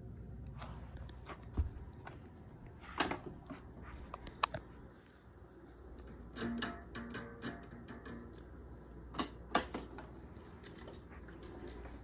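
Scattered clicks and knocks from a 1982 Hoover Decade 80 commercial upright vacuum being handled and its handle taken up, with the motor not running. The clicks come in small clusters, the loudest about three, four and a half, and nine and a half seconds in.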